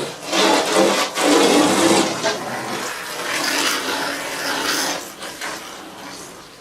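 Rushing, splashing water noise from window cleaning, coming in irregular swells that fade toward the end.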